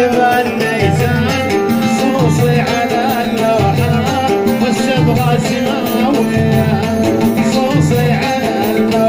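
Live Arabic folk music: an oud played into a microphone, its melody wavering over a low, steady beat.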